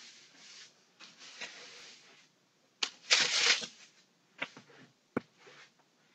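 Broom sweeping a floor in short bristle swishes, the loudest stroke about three seconds in, with a few sharp knocks between strokes.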